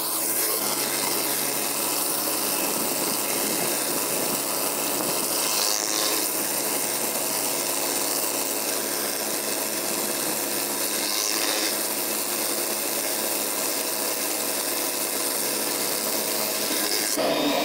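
Pressure-washer surface cleaner running over concrete: a steady hiss of high-pressure water from its spinning spray bar, with a steady hum underneath.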